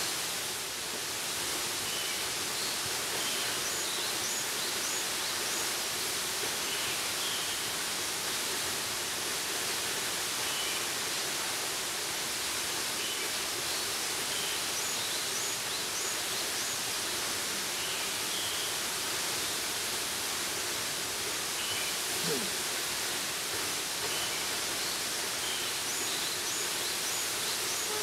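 Waterfall's steady rush of falling water, an even hiss. A few faint high chirps come and go over it.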